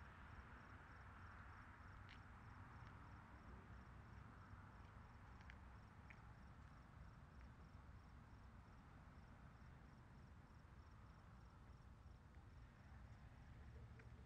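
Near-silent evening meadow ambience: a single cricket chirping steadily and faintly, about three short high chirps a second, with a few other brief faint chirps.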